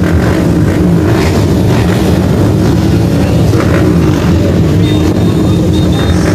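Several motocross dirt-bike engines running at once, their pitches rising and falling as riders rev them.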